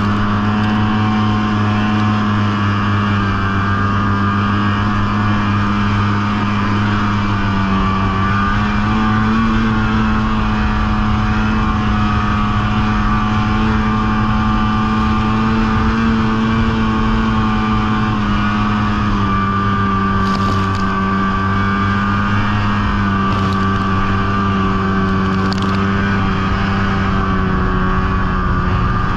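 Snowmobile engine running steadily under way through deep snow, its pitch rising slightly about a third of the way in and easing back later. A few light ticks come through near the end.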